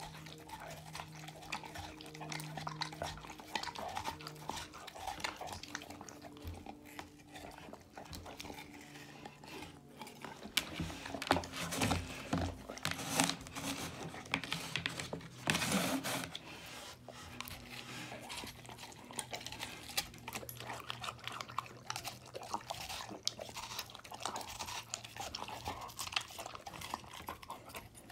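Labrador chewing and crunching watermelon, with a run of louder bites about halfway through.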